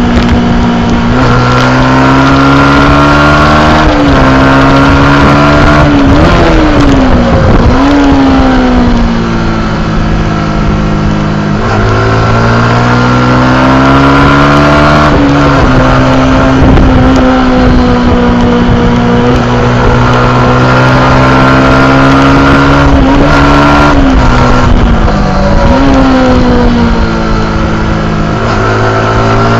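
Yamaha YZF R125's 125 cc single-cylinder four-stroke engine running hard at high revs, with small steps in pitch at gear changes. Twice the pitch falls away and climbs back up, about seven seconds in and again near the end.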